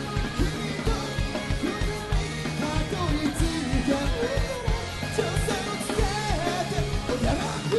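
Rock band playing over a steady drum beat with electric guitars, with a bending, wavering melody line through the middle.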